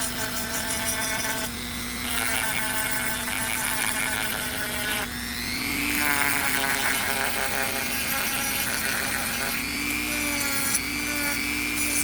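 Power tool running on wood for intarsia work, its motor whine shifting pitch about six seconds in as the load changes.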